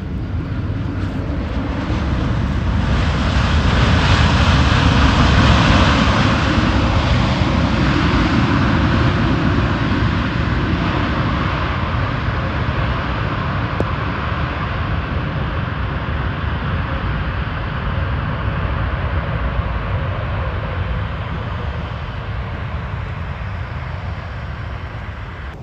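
Jet engines of a twin-engine wide-body airliner on its landing rollout on a wet runway, with reverse thrust throwing up spray. The noise swells about two seconds in, peaks a few seconds later, then slowly dies away as the aircraft slows.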